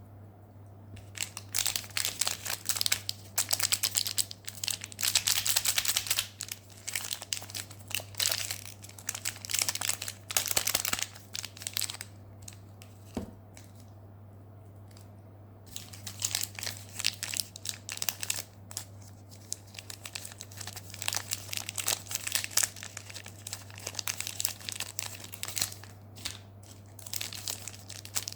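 Candy wrappers being crinkled and torn open by hand, in long spells of dense crackling with a pause of a few seconds around the middle. A low steady hum runs underneath.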